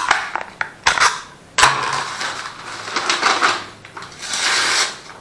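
Fiskars knife drawn from its plastic sheath past the sheath's built-in V-shaped hard-metal sharpener, with a few sharp clicks. This is followed by several scraping strokes as the blade cuts through newspaper, a test of whether the sharpener has honed the edge.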